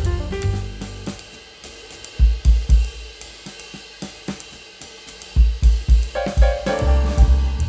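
Background music: a jazzy drum kit with cymbals, hi-hat and kick drum. About a second in the bass and melody drop out, leaving mostly drums, and they come back in near the end.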